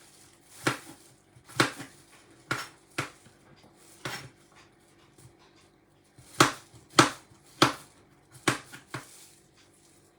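Knife chopping on a cutting board: about ten sharp chops at uneven spacing, with a pause of about two seconds in the middle.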